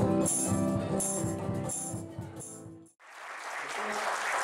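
Band music with pitched instruments and a shaker-like percussion stroke about every two-thirds of a second fades out to silence about three seconds in. A noisy audience hubbub in a hall then rises.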